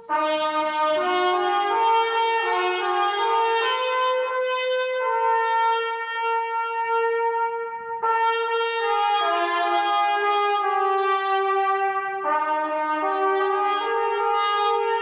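Brass instruments playing a slow piece in several parts: long held notes moving step by step, in phrases that break off briefly and start again about eight and twelve seconds in.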